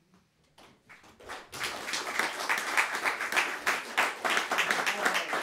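Small audience applauding: a few scattered claps at first, then the applause quickly builds to a full, steady clapping.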